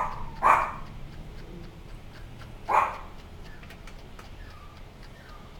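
Small slicker brush tapping and lifting through a Yorkshire terrier puppy's matted coat: three short swishes, two at the start and one about halfway through, then only faint light ticks. The swish is the sign that the brush is still catching a mat; when the brushing goes silent the mat is out.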